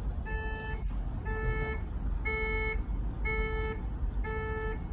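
Shipboard fire alarm sounding during a test: a buzzing electronic beep about half a second long, repeating about once a second, over a steady low hum.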